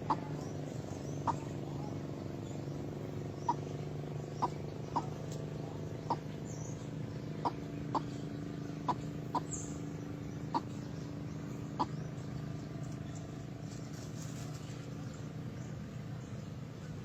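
A bird giving short, sharp call notes, about a dozen at irregular intervals, over a steady low hum.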